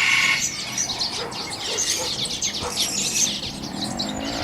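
Many small caged songbirds chirping and calling at once, a dense chorus of overlapping quick chirps and trills, with one louder call right at the start.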